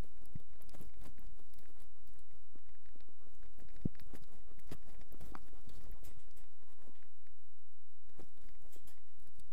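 Footsteps and body movement of a search and rescue dog, picked up by a microphone worn on the dog: irregular crunching steps, knocks and rubbing that die down about six to seven seconds in as the dog stops and stands. No barking.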